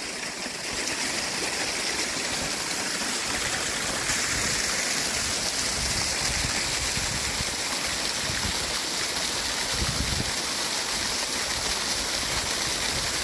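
Hill burn in spate rushing steadily over a small rocky waterfall and down a grassy channel: a mad amount of water, swollen after heavy rain.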